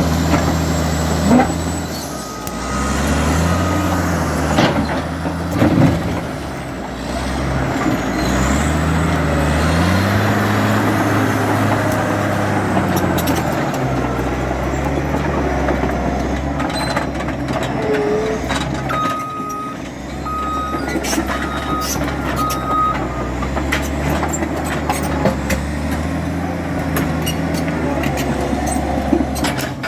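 Caterpillar D8 bulldozer's diesel engine working under load, its pitch rising and falling as it revs up and settles. A reversing alarm beeps in short runs a few seconds in and again about two-thirds through, and there are occasional sharp metallic clanks.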